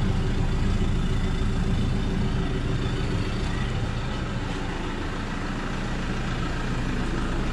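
Motor vehicle engine running steadily, a low even hum.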